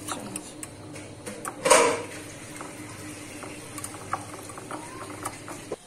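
Small wire whisk stirring yogurt raita in a glass dish, its wires giving light clicks against the glass, with one brief louder knock about two seconds in, over a steady low hum.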